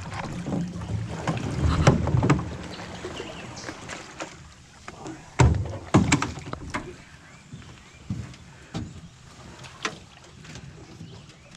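Knocks and thumps of gear and fish being handled in a small fishing boat, a dozen or so separate bumps with the loudest two about five and six seconds in. A low steady hum fades out about two seconds in.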